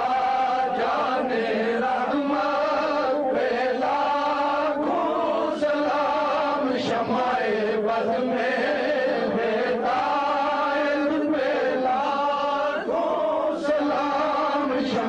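Devotional chanting: voices sustain a continuous melodic chant without pause.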